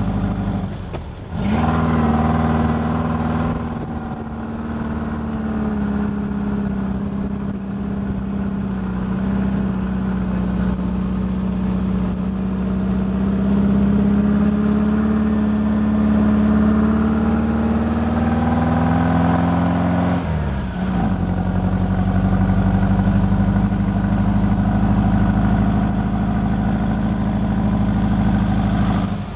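Dune buggy engine pulling steadily across soft sand, its note holding one even pitch. The note breaks off and picks up again about a second in, and falls away and resumes about twenty seconds in, as the driver changes speed.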